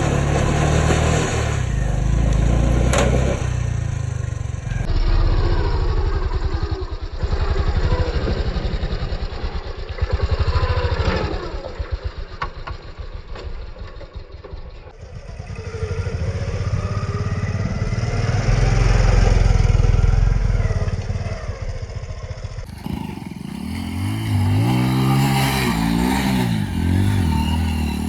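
Hero Splendor motorcycle's small single-cylinder engine running and revving, in several clips cut together; in the last few seconds the revs rise and fall repeatedly.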